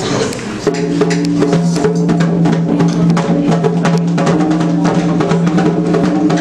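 Candomblé ceremonial music: fast, dense drum and percussion strokes over a steady held tone, coming in under a second in.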